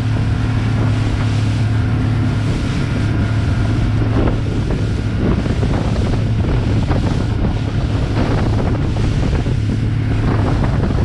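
A fishing boat's engine running steadily under way, a constant low drone, with wind buffeting the microphone and water rushing past the hull.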